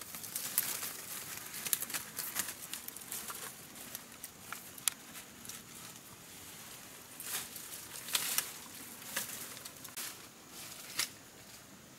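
Leaves and plant stems rustling and crackling as hands push through and pick at dense undergrowth, in irregular short snaps that thin out near the end.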